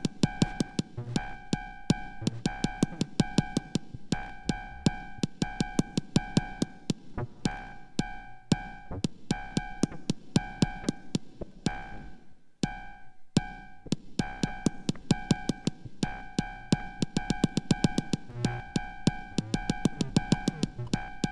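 Minimal techno from a VCV Rack software modular patch: synthesized kick drum and fast, clicking drum-machine percussion over a steady ringing synth tone. About twelve and a half seconds in the kick and low end drop out for under a second before the pattern comes back.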